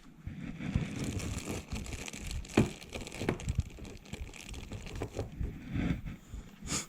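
Hands rummaging and handling small brake-fitting parts, with crinkling and a few sharp clicks, the loudest about two and a half seconds in.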